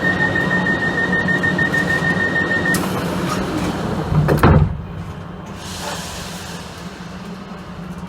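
Passenger train door-closing warning: a rapid high-pitched beeping for about three seconds, then the sliding doors shut with a loud thud about four and a half seconds in, after which the sound drops to a quieter steady rumble.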